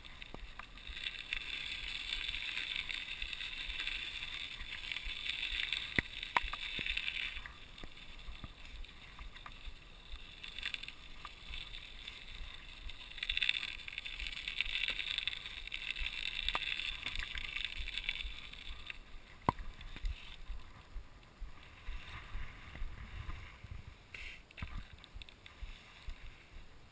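Mountain bike tyres rolling over wet snow, a swishing hiss that swells and fades in stretches, with a few sharp clicks from the bike.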